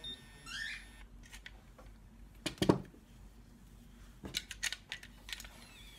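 Sharp clicks and knocks from handling a Conair Curl Secret automatic hair curler, with a loud cluster about two and a half seconds in and a few lighter clicks between four and five and a half seconds in.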